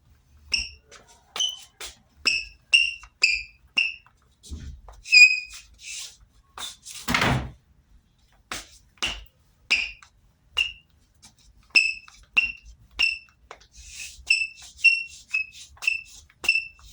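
Sneaker soles squeaking on a floor: a series of short, high-pitched chirps, one or two a second in irregular runs, with a longer scuffing sound about seven seconds in.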